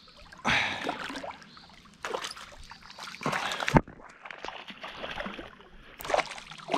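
A hooked trout thrashing and splashing at the water's surface in several separate bursts, with one sharp knock a little before four seconds in.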